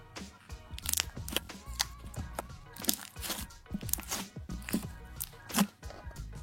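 Slime being handled by hand, giving off irregular crackling and popping clicks, over background music.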